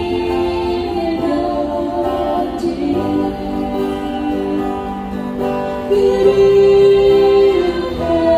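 Live singing with acoustic guitar accompaniment, a Korean ballad played by buskers. A long held sung note about six seconds in is the loudest part.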